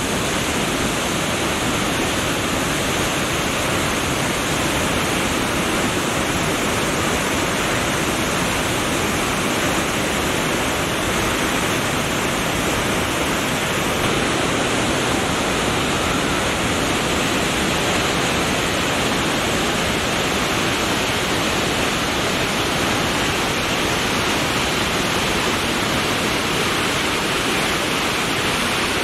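Elk Falls, a large waterfall, rushing steadily and loudly: an even, unbroken noise of heavy falling water with no change in strength.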